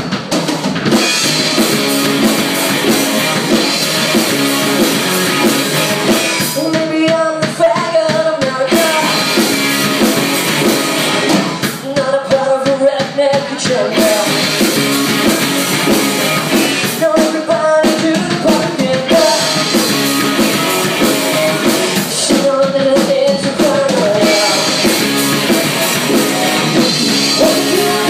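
Live rock band playing, with electric guitars and a drum kit. A singer's phrases come in about every five seconds over the band.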